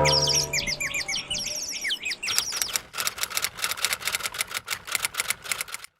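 Motion-sensor toy lovebird chirping: quick falling tweets at first, then a fast, even run of chirps about five or six a second, cutting off suddenly near the end. A brief low hum sounds at the very start.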